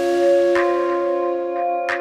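Background music: sustained, bell-like chords with a few light percussive hits. A chord change comes right at the start, with a bright wash that fades over about a second.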